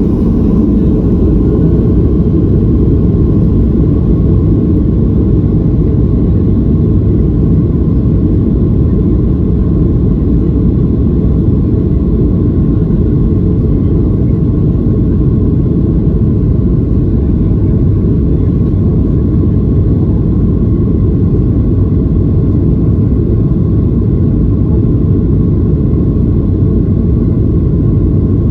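Boeing 737-800's CFM56-7B jet engines at takeoff power, heard inside the passenger cabin as a loud, steady, low rumble.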